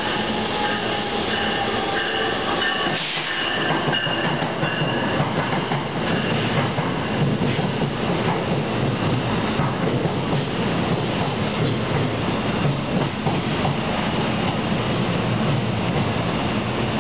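NJ Transit ALP-46A electric locomotive and Multilevel bi-level coaches rolling into the station and slowing as they arrive, with steady wheel-on-rail noise. A few steady tones sound over the first three seconds or so as the locomotive goes by.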